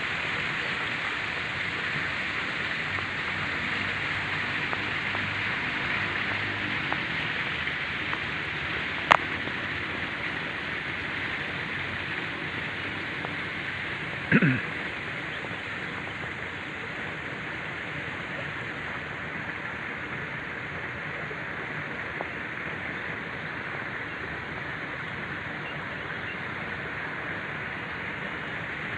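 Steady rushing outdoor noise, with a single sharp click about nine seconds in and a brief sound falling in pitch around fourteen seconds.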